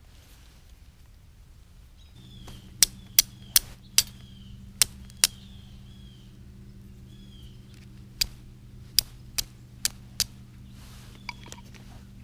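Hand-held fire steel being struck to throw sparks onto a tinder nest: a quick run of six sharp strikes, a pause, then five more, with a few lighter strikes near the end.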